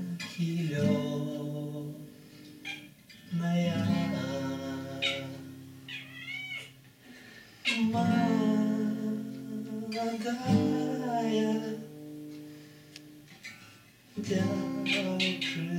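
Acoustic guitar strummed in slow chords, each left to ring, with a man singing and a domestic cat meowing along between the chords.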